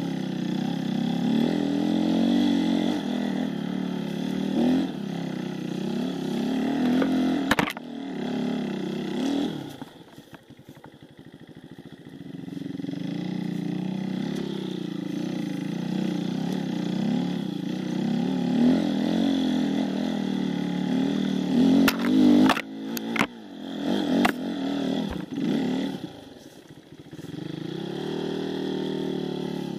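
Enduro dirt bike engine running under changing throttle, its pitch rising and falling. About ten seconds in it drops back to a low idle for a couple of seconds, then picks up again. There is a sharp knock about eight seconds in and a cluster of knocks and clatter in the last third.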